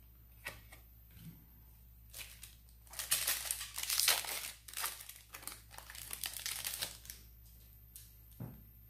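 Foil wrapper of a Magic: The Gathering collector booster pack crinkling and tearing as it is opened, loudest for a few seconds in the middle. A few light card clicks come before it and a soft knock near the end.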